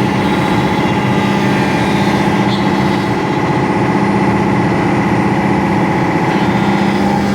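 Woodworking machinery running steadily, a constant hum made of several held tones over a dense mechanical noise.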